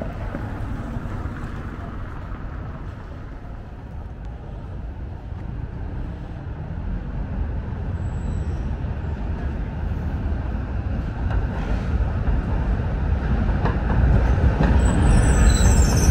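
Street traffic: a low rumble of a passing vehicle, growing louder through the second half.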